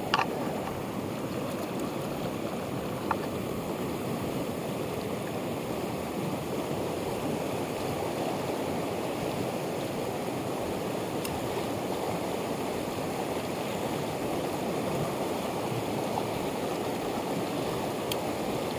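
A fast mountain torrent rushing steadily over rocks and riffles, with a few faint ticks now and then.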